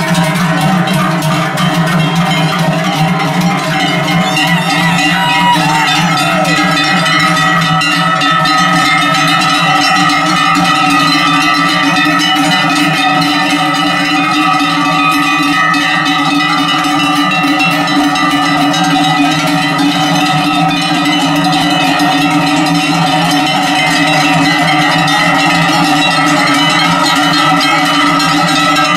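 Many cowbells on a herd of cattle clanging together without a break, a dense overlapping jangle of many different pitches as the animals walk.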